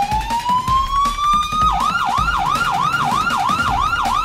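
Police vehicle siren (hooter) sounding: a slow wail rising in pitch, which about two seconds in switches to a fast yelp that sweeps up and down several times a second.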